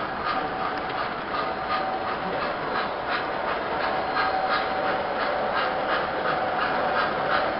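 Model steam locomotive running along the layout track with its passenger cars: a steady rhythmic clicking, about three a second, over a constant motor whine.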